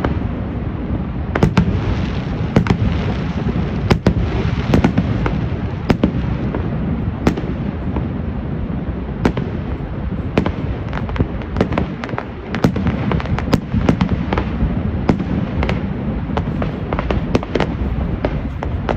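Fireworks display: a continuous run of booms and sharp cracks, many in quick succession, over a steady low rumble.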